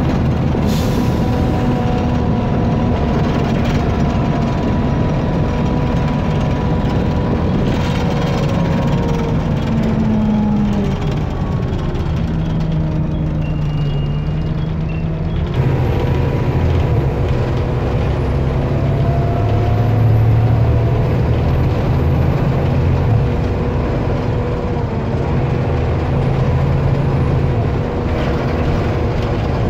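Engine roar of an Alexander ALX400 double-decker bus's rear-mounted diesel engine, heard from the back seats of the lower deck as the bus drives along. The engine note climbs and drops with the gear changes, with a short hiss near the start.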